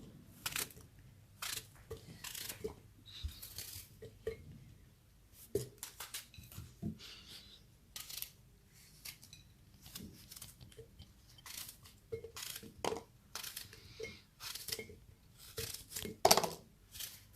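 Small apple pieces being dropped and pressed one by one into a bottle: irregular light clicks and knocks, with a louder knock near the end.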